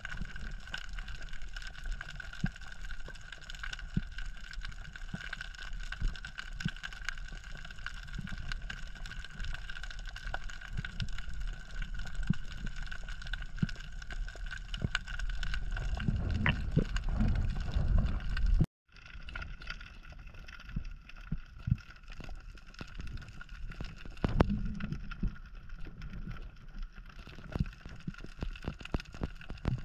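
Underwater sound picked up by a camera in a waterproof housing: a steady low rumble of moving water with frequent small clicks and crackles and a faint steady whine. The rumble swells louder for a couple of seconds before the sound cuts out briefly about two-thirds of the way through.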